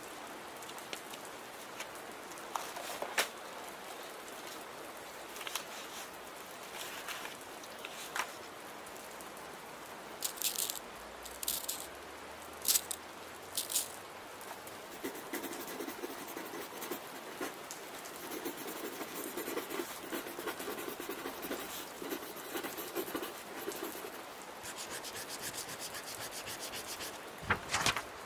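Steady rain with handwriting on paper: scattered short pen scratches in the first half, then a longer run of continuous writing strokes in the second half, and one louder scrape near the end.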